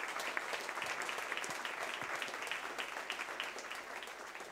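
Audience applauding: a steady round of many hands clapping.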